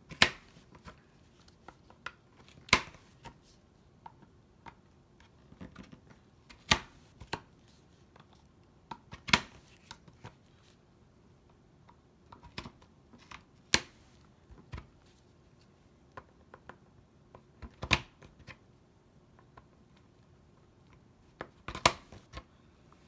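We R Memory Keepers Sew Ribbon hand punch snapping down through heavy photo paper, one punched slot at a time: a sharp click every three to four seconds, about seven in all, with softer ticks between as the punch and template are shifted to the next slot.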